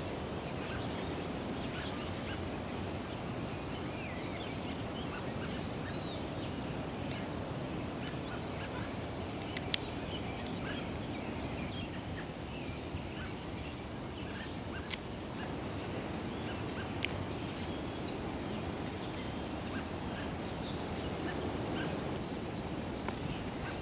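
Outdoor garden ambience: a steady background hiss with scattered small bird chirps and a couple of sharp clicks.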